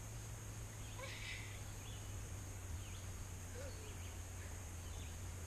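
Quiet outdoor ambience: a steady low hum with a few faint bird chirps.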